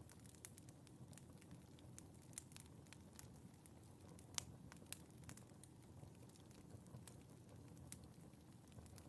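Wood logs burning in a fireplace, crackling softly with scattered sharp pops over a low, steady rustle of flame; the loudest pops come a little past the middle.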